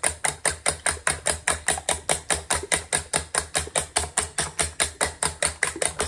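Fork whisking beaten eggs in a stainless steel bowl: fast, even clinks of the fork against the metal, about seven a second.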